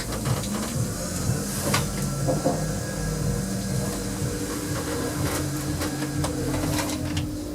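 Small generic passenger lift running: a steady motor hum and rumble, with a few sharp clicks and knocks from the car and its doors.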